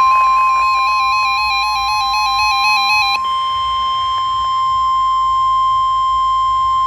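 NOAA Weather Radio's steady 1050 Hz warning alert tone, announcing the next emergency message. For about the first three seconds a second electronic alarm warbles over it between two pitches; then that alarm gives way to a steady higher beep.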